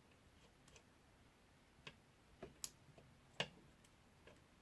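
Faint clicks and taps from handling the small parts of a DJI Phantom 3 Pro gimbal's ribbon cable connector. There are about four of them between two and three and a half seconds in, the last two the sharpest, over near silence.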